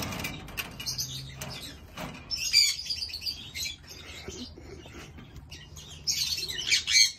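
Birds chirping in short bursts, about two and a half seconds in and again near the end.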